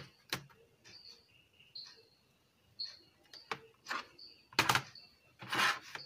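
Workbench handling noise: sharp clicks of multimeter probe tips on a car-stereo front-panel circuit board, then louder rustling and scraping as the board is moved and turned over near the end. Short high chirps recur about once a second in the background.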